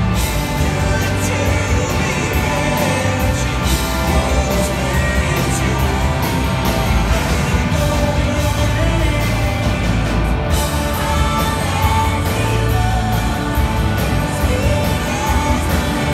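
Live blues-rock band playing: electric guitars, bass guitar, drums and organ, with singing.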